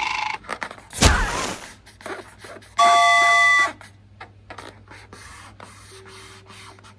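Added cartoon sound effects: a short noisy burst about a second in, then a held electronic chime-like tone for about a second.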